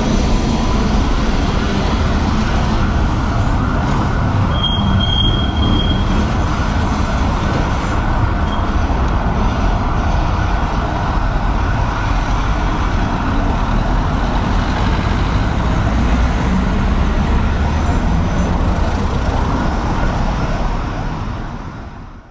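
Steady city street traffic noise, a dense wash of passing vehicles, with a brief high tone about five seconds in. The sound fades out near the end.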